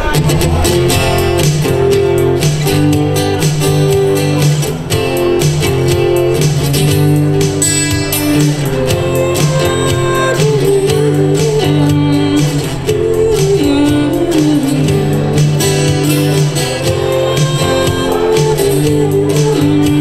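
Live acoustic guitar strummed steadily, with singing into microphones.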